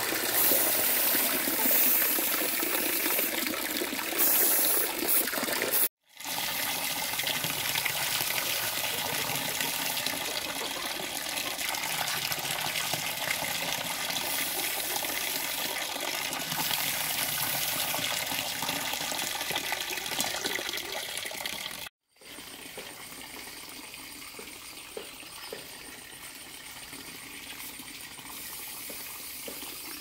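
Water running and gushing steadily, broken by two abrupt cuts about six and twenty-two seconds in; the last stretch is quieter.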